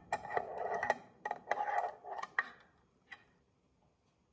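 Metal screw-on lid being twisted off a glass jar: a run of clicks and scraping as the lid turns on the threads, stopping about two and a half seconds in.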